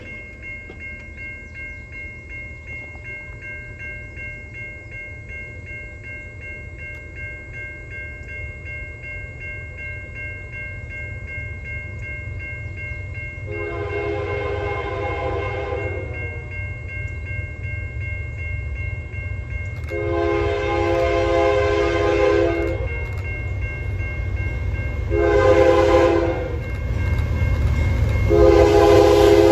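CN freight locomotive's horn sounding the grade-crossing signal (two long blasts, a short one, then a long one) as the train approaches, over a crossing bell ringing steadily and a rumble of the train that grows louder throughout.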